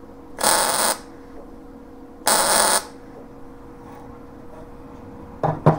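MIG welder laying short stitch welds on a sheet-steel patch panel: two bursts of arc, each about half a second, about two seconds apart, with a steady hum underneath.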